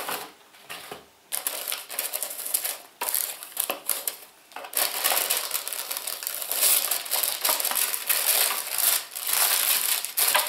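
A cardboard subscription box being opened and its packaging rustled and crinkled by hand. The rustling comes in irregular bursts, sparse at first and nearly continuous from about halfway through.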